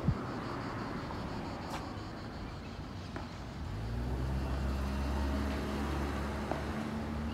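A motor vehicle's engine running close by over street background noise. Its steady low hum comes in about halfway through and grows louder.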